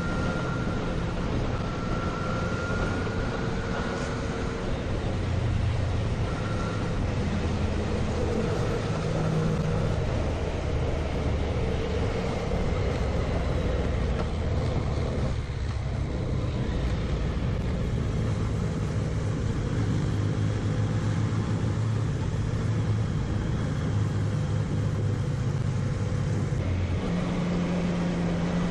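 Motorcycle engine running under way over steady wind rush, the engine note rising and falling as the rider changes speed, with an abrupt change in the sound near the end.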